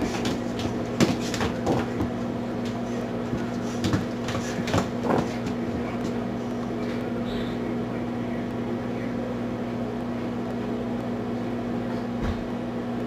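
A Shiba Inu puppy and a tabby cat play-fighting on a vinyl floor: short scuffles and knocks in the first couple of seconds and again around four to five seconds in, then quieter as they separate. A steady low hum runs underneath.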